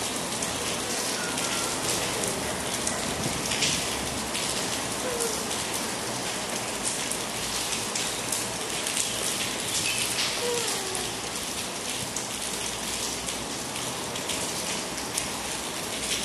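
Steady rain: an even hiss dotted with many tiny clicks, with a few faint short glides in pitch.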